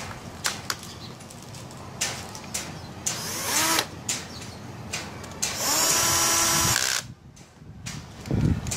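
Cordless drill-driver with a socket bit running bolts into a motorcycle engine: a short burst that rises in pitch about three seconds in, then a steady run of about a second and a half that stops suddenly near seven seconds. Clicks of the tool and socket on the bolts come between the runs.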